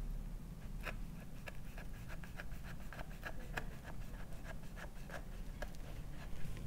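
Kitchen knife cutting down through a baked lemon-slice bar with a crumbly shortbread crust onto a wooden cutting board: a run of small crisp clicks and scratchy crunches, several a second, starting about a second in. A steady low hum runs underneath.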